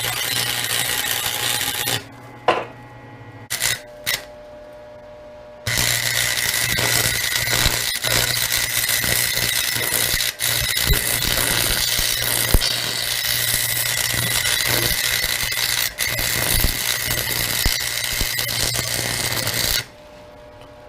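Electric drill boring holes through the welded steel engine-mount plate, running at a steady pitch. It stops about two seconds in, with a few light knocks during the pause, then starts again and runs until just before the end.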